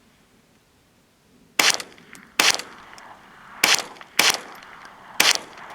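.22 LR firearm firing five shots of Browning 40-grain hyper velocity rounds at an irregular pace, each a sharp crack with a short echo.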